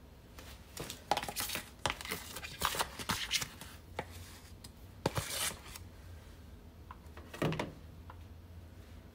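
Kitchen handling noises while icing a cake: irregular scraping, rustling and light knocks of a spatula and plastic icing tub, busiest from about a second in to six seconds, with one more short burst near the end.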